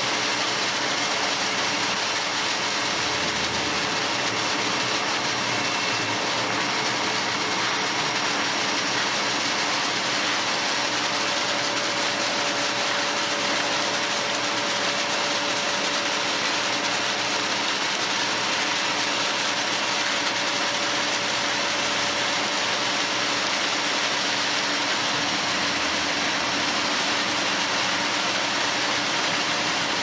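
Concrete mixer truck's engine running steadily with the drum turning as concrete is discharged down the chute: a continuous, even mechanical rumble and hiss.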